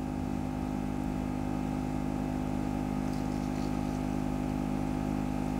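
Steady machine hum with several constant low tones.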